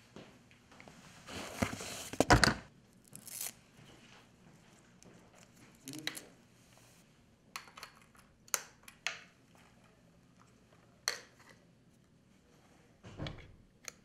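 Cable and connector handling: a loud rustling scrape about two seconds in, then scattered sharp clicks and knocks as XLR microphone-cable plugs are pushed into a camera's mic input and onto a handheld microphone.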